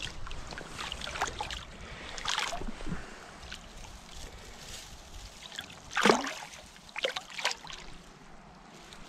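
Short, irregular splashes and sloshes of water, the loudest about six seconds in.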